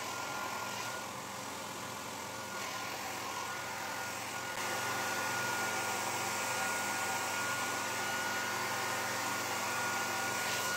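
Handheld hair dryer running on medium speed, blowing through a kitchen colander used as a diffuser against the hair: a steady rush of air with a thin whine, getting a little louder about four and a half seconds in.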